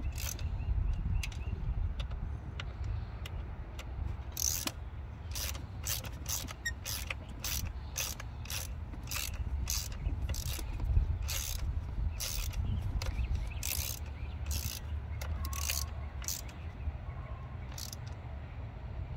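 Hand ratchet clicking in short irregular strokes, about two clicks a second, over a steady low rumble.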